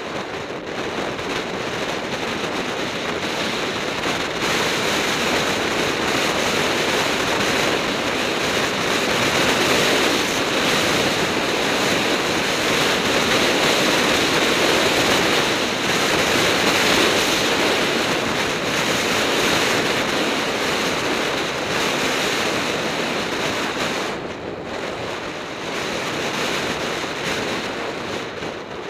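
Wind buffeting the camera's microphone on a road bike descending at speed: a loud, steady rush, strongest through the middle and easing briefly near the end.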